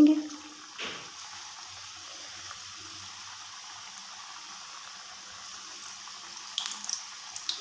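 Spring rolls deep-frying in hot oil in a wok: a steady sizzling hiss, with a few sharp crackles near the end.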